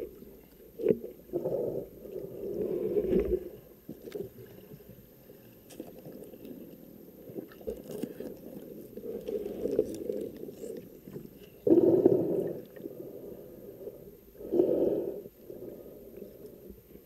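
Muffled underwater sounds in a camera housing: water churning and scraping in several surges, the loudest about two-thirds through, while a speared pike is handled and brought in on the spear line, with a few short clicks.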